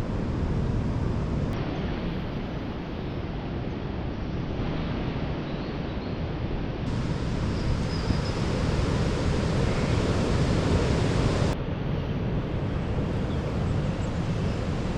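Strong storm wind rushing through the forest treetops, a steady loud roar with a low rumble.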